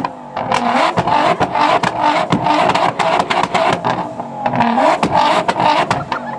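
Nissan GT-R R35's twin-turbo V6 revved again and again, with a rapid, irregular string of loud exhaust pops and bangs. This is unburnt fuel igniting in the exhaust as it spits flames, the anti-lag style backfiring of a modified car.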